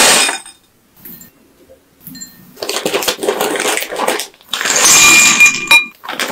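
Roasted peanuts poured from a bag rattle into a ceramic bowl for about half a second. A couple of seconds later a plastic snack packet crinkles and tears as it is opened, loudest about two-thirds of the way through.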